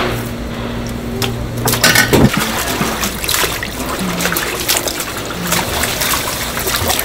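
Water sloshing and splashing in a plastic tub as whole squid are rubbed and washed by gloved hands, with many short splashes and knocks.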